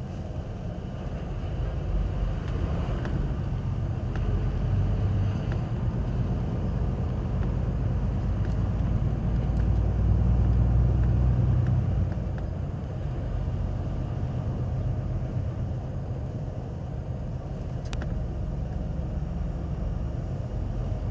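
Vehicle's engine and tyre noise heard from inside the cab while driving at about 30–37 km/h: a steady low rumble that swells about ten seconds in, with a sharp click near the end.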